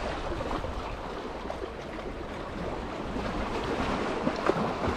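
Steady rush of wind and choppy water lapping, with wind buffeting the microphone.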